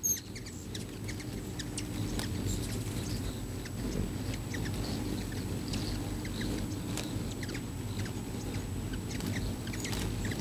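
A crowd of hummingbirds swarming a nectar feeder: the steady hum of many wingbeats, with frequent short, high chirps and squeaks from the birds.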